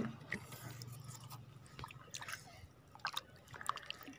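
Faint small water drips and splashes with light, scattered clicks, as of water moved and gear handled close by.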